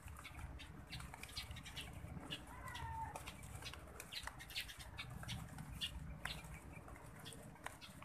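Eurasian tree sparrows feeding on rice grains, giving many short, sharp chirps, with one lower call that falls in pitch about three seconds in.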